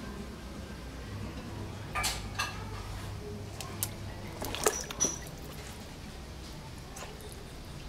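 Scattered light clicks and taps of a red-eared slider's claws and shell scrabbling on a hard plastic ramp, the sharpest knock a little before the five-second mark.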